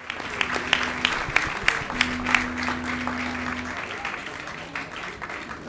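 An audience clapping, with loud single claps close by over general applause that thins out and fades over the few seconds. A steady low tone sounds under the clapping in the first half.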